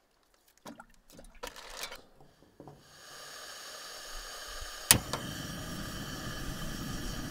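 Fire Maple camping gas stove being lit: a few small handling clicks, then gas hissing from the opened valve, a single sharp igniter click about five seconds in, and the burner catching and burning steadily with a low rumble.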